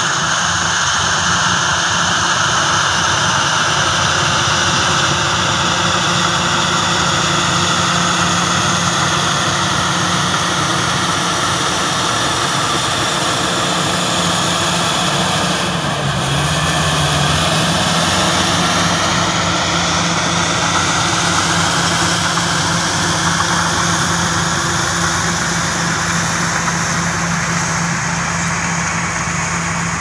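Crawler bulldozer's diesel engine running steadily while it pushes earth; its pitch drops briefly about halfway through, then comes back up.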